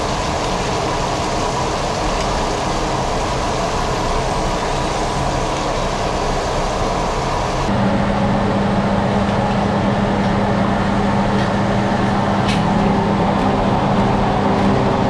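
Pieces of grouper deep-frying in a wok of hot oil, sizzling steadily over the low rumble of the kitchen range. About halfway through the sound grows a little louder and a steady low hum comes in.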